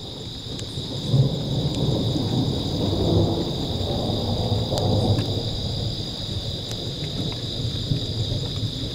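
Thunder rumbling in one long roll that builds about a second in and eases after about six seconds, with rain falling. A steady high-pitched drone runs underneath throughout.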